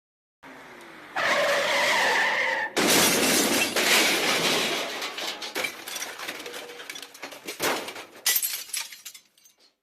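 MGM cartoon 'elephant smash' sound effect: a faint low sound, then an elephant's trumpet held for about a second and a half, cut off by a loud crash of shattering glass and debris that rattles and tinkles away over several seconds.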